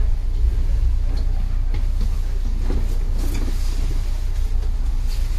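Steady low rumble of a stopped electric commuter train's cab at a platform, with a few light knocks and a rustle about halfway through.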